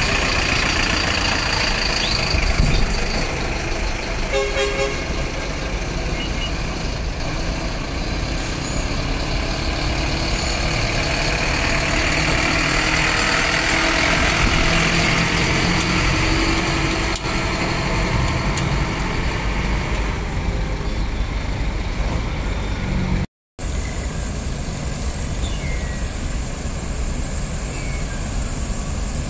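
City buses' diesel engines running, with a short horn toot about four seconds in. The sound drops out for a moment near the end.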